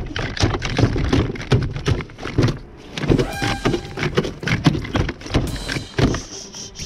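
Irregular knocks, thumps and rattles on a plastic fishing kayak as gear is handled aboard, several each second.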